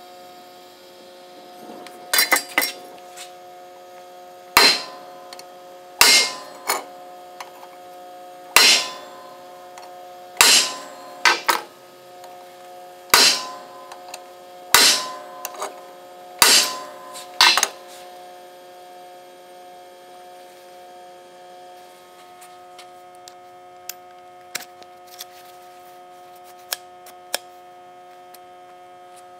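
Hammer blows on a steel rod set into a red-hot steel part clamped in a machinist's vise: sharp metallic strikes every second or two, some followed by a lighter second tap, stopping about two-thirds of the way through. After that there are only a few faint light clicks, and a steady electrical hum runs throughout.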